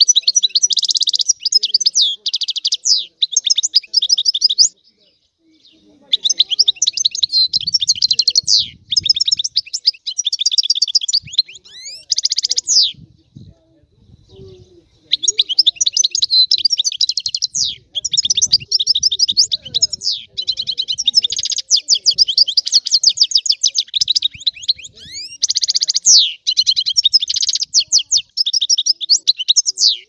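European goldfinch singing: long runs of fast twittering notes, rapid trills and quick pitch glides. It pauses briefly about five and thirteen seconds in, then sings on without a break.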